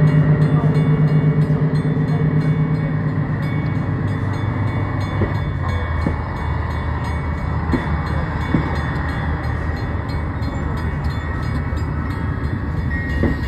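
Budd RDC diesel railcars moving past close by. Their underfloor diesel engines give a loud pulsing throb that fades over the first few seconds into a lower steady drone, with a few sharp clanks from the wheels on the rails.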